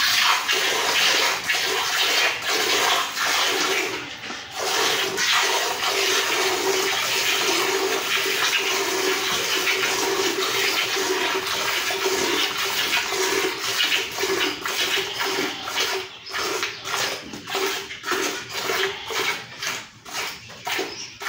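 Cow being milked by hand: jets of milk squirting from the teats into a pail of milk, a steady hissing, frothing stream. In the last few seconds the separate squirts stand out, about two a second.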